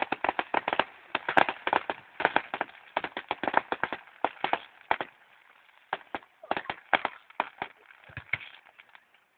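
Display fireworks going off in a rapid barrage of sharp bangs and crackles, several a second, thinning out near the end.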